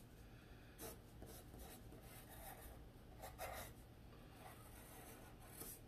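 Faint scratching of a graphite pencil on paper, in short irregular strokes, as a leaf outline is sketched.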